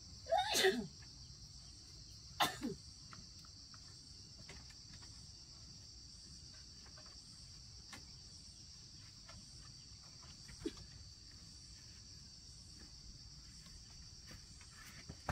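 Steady, high-pitched chorus of insects shrilling, with two short louder sounds that fall in pitch in the first few seconds and a small one later.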